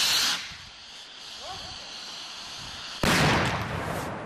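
A firework hissing, fading after about half a second. About three seconds in comes a sudden loud bang, followed by a spray of fizzing, crackling sparks as the firework goes off at ground level.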